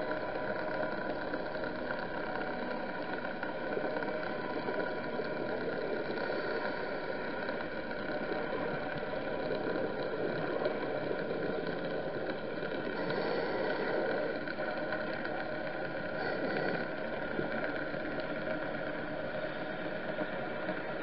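Steady underwater motor drone: a hiss with several held tones over it, swelling slightly now and then, with no separate breaths or bubble bursts.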